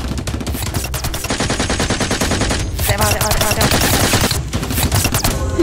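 Rapid automatic gunfire, many shots a second in long bursts with a couple of short breaks, of the kind dubbed over staged Nerf blaster battles.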